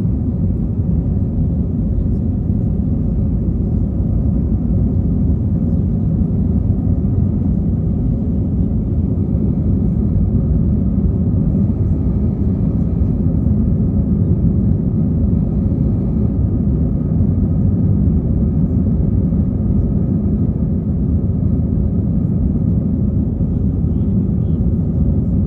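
Steady low rumble of jet engines and airflow heard inside the cabin of a Wizz Air Airbus A320-family airliner, even and unchanging throughout.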